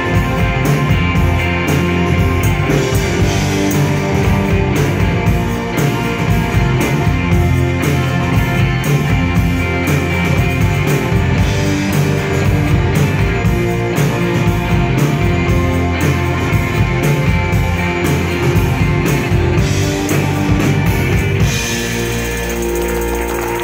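Live rock band playing: electric guitars and keyboards over a drum kit keeping a steady beat. A little over 21 seconds in, the drums stop and the band holds a final ringing chord.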